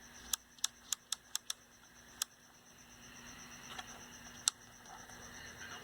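A run of sharp clicks, six in quick succession and then two more spaced out, as the on/off switch of a 10-transistor AM radio is worked, over a faint steady hum from the set. The radio keeps making sound with the switch off because the power switch is not disconnecting.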